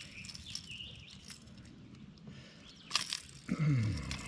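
Small clicks and knocks of hands handling gear in a kayak, with a cluster of clicks about three seconds in and then a low sound sliding down in pitch for under a second near the end. A bird chirps briefly at the start.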